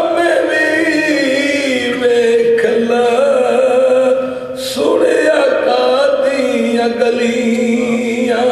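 A man's voice singing a Punjabi naat (devotional poem in praise of the Prophet), drawing out long, slowly bending held notes, with a brief pause about halfway through.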